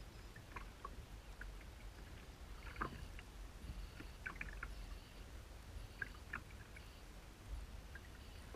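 Small waves lapping against a plastic kayak hull, with scattered small irregular splashes and ticks over a low rumble.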